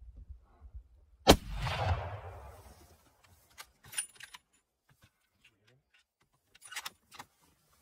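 A single hunting rifle shot at a mule deer buck, about a second in, its report echoing away over the next second and a half. No bullet strike ('whap') is heard after it. A few light clicks follow.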